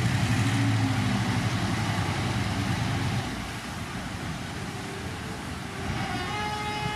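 Heavy earthmoving machine's diesel engine running under load, louder for about the first three seconds and then easing off. A steady high tone with overtones joins near the end.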